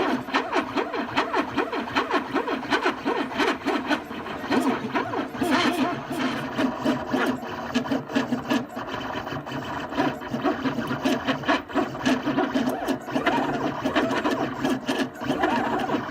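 3D printer printing, its stepper motors whirring and buzzing in quickly changing pitches as the print head moves, with frequent small clicks.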